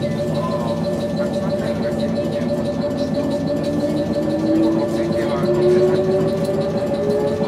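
Meitetsu 7700 series electric train starting to move: a steady hum with a traction-motor whine that begins about two seconds in and rises slowly and evenly in pitch as the train gathers speed.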